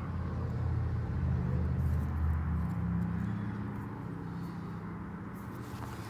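Low engine rumble of a motor vehicle, growing a little louder over the first two seconds or so and then easing off.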